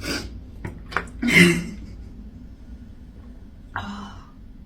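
A few small clicks, then a short, rough burp from a woman who has been drinking fizzy Sprite, about a second and a half in. A weaker throat sound follows near the end.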